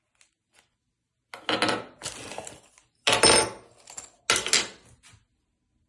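Metal bidet-sprayer fittings, the chrome T-valve among them, clattering and clinking against a stone countertop as they are handled and set down, in three separate bursts.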